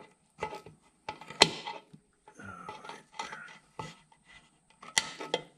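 Needle-nose pliers clinking against a metal hose clamp as it is worked back onto an oil line fitting: a run of short metallic clicks and scrapes. The sharpest click comes about a second and a half in, and another comes near the end.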